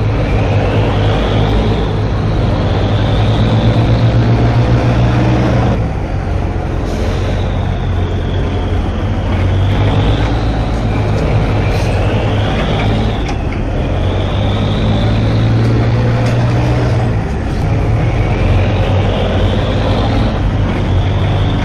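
A vessel's diesel engine running steadily close by, a deep even hum with a higher whine that rises and falls every few seconds.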